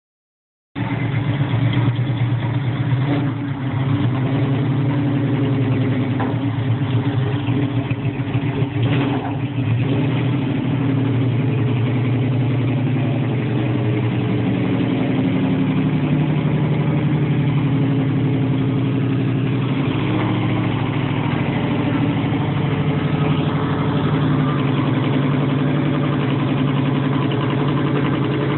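A car engine running steadily, its pitch shifting a little at times.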